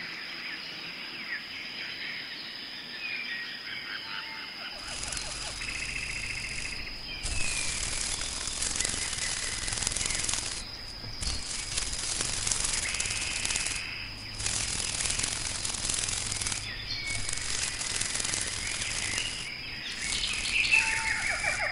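Outdoor nature ambience: birds chirping now and then over a steady thin high whine. About five seconds in, a louder even hiss with a low hum sets in, broken by brief gaps every few seconds.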